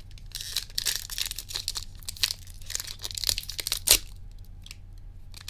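Foil booster-pack wrapper of Pokémon trading cards being torn open and crinkled in the hands, a run of crackling rustles, with one sharp snap just before four seconds in.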